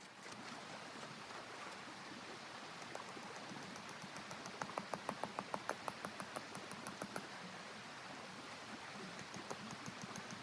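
Steady blizzard wind noise, with a quick run of sharp crunching clicks, about five a second, lasting a couple of seconds in the middle.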